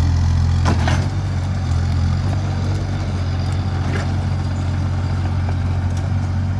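Engine of a heavy scrapyard machine running steadily with a deep hum, its note shifting slightly about a second in, with a few faint metal knocks over it.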